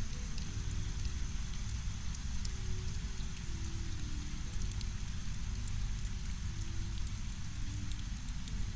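Steady rain ambience with scattered sharp drop ticks, layered over a deep, even brown-noise rumble. Faint soft held tones underneath slowly step from one pitch to another.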